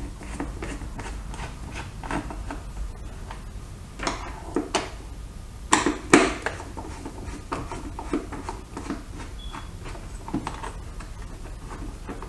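Phillips screwdriver turning out small screws from a motorcycle's plastic tool tray, with scattered light clicks and taps of metal and plastic. A few louder knocks come in the middle, the loudest about six seconds in.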